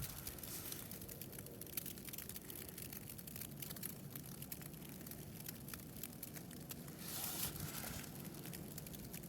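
Faint, continuous crunching and crackling of walking through deep snow, a dense run of fine ticks with a louder crunch about seven seconds in.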